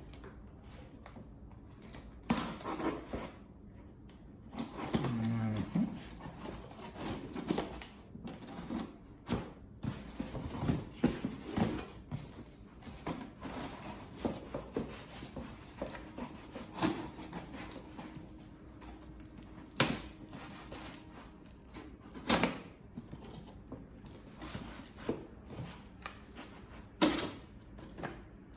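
A knife cutting and scraping through the tape and cardboard of a shipping box. Irregular scraping and rustling, broken by sharp clicks and knocks as the packaging is handled.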